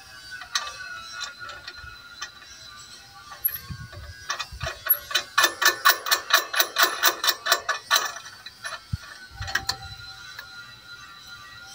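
Ratchet wrench clicking rapidly, about six clicks a second for three seconds, as 9/16 nuts are run down onto the fan-mount bolts, with a few scattered clicks before it. Background music plays underneath.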